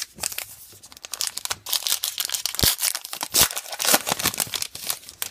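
A trading-card pack wrapper being torn open and crinkled, a dense run of crackling tears and rustles.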